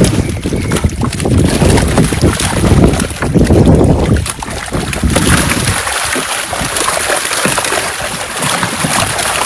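Crowded fish thrashing and splashing in shallow water inside a drawn-up net as they are scooped out by hand. Wind rumbles on the microphone for about the first four seconds, after which the splashing is a steady high hiss.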